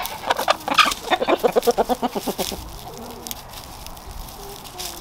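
Buff Orpington chickens clucking. A fast run of loud clucks, about seven a second, fills the first two and a half seconds, followed by quieter, low murmuring calls.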